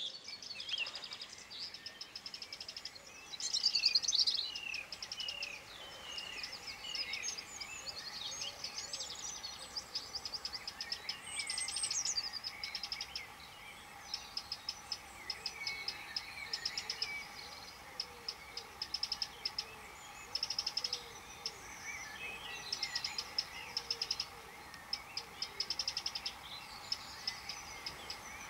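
Small birds singing and calling: many short chirps and whistled notes, with repeated fast chittering trills through the second half.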